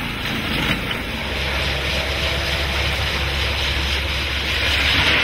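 Heavy track-construction machinery running: a steady diesel engine drone under a rushing noise that grows louder near the end, with a couple of light clicks early on.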